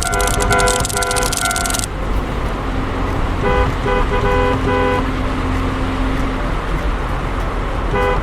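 Cartoon railway sound effects. The rushing noise of a passing train cuts off about two seconds in, a low rumble runs on underneath, and quick groups of four or five short electronic tooting beeps repeat every few seconds.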